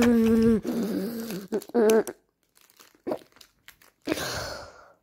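Plastic sweet wrappers crinkling and rustling as a hand rummages through a pile of candy packets. It comes as a few light clicks and then a longer rustle about four seconds in.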